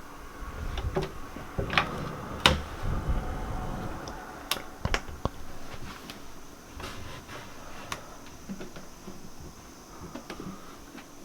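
Clicks and knocks of a door handle and latch being tried at a door barricaded shut from the inside, with dull thuds in the first few seconds. The sharpest knock comes about two and a half seconds in, and the sounds thin out after about eight seconds.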